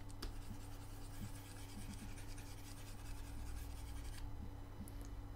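Faint scratchy rubbing of a computer pointing device being dragged over the desk during sculpting strokes, over a steady low electrical hum.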